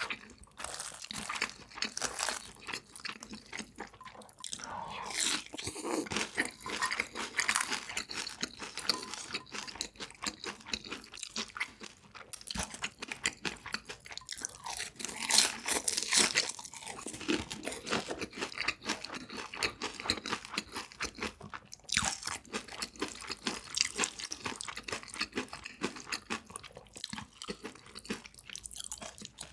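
Close-miked eating: crunchy food being bitten and chewed, with dense, irregular crackling crunches, loudest about halfway through.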